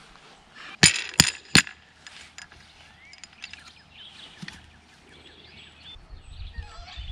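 Three quick, sharp hammer strikes about a third of a second apart, a second in, made while setting an electric fence post. Birds chirp faintly around them.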